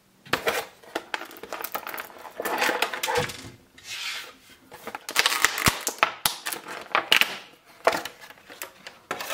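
Thin clear plastic blister tray crackling and clicking as an action figure is handled and worked out of it, with a run of sharp crinkles and snaps.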